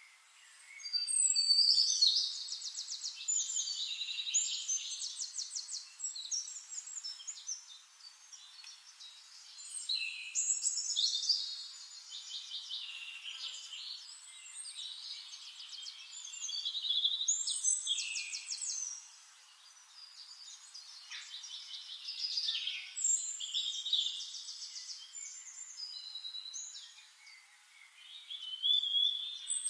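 A songbird singing long, rapid, trilling and warbling phrases, about five of them, each a few seconds long with short pauses between.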